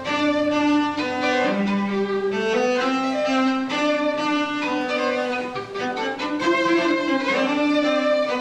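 String trio of violin, viola and cello playing an arranged pop song: a low cello note is held for about the first second and a half, then the three parts move on together in a flowing melody.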